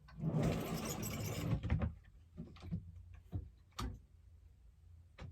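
Rummaging through clothes and items: a burst of rustling lasting about a second and a half, then scattered light taps and clicks of things being handled.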